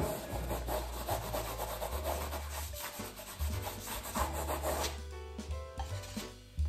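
Stiff bristle brush scrubbing oil paint into a stretched canvas, a dense run of short scratchy rubbing strokes that dies away about five seconds in.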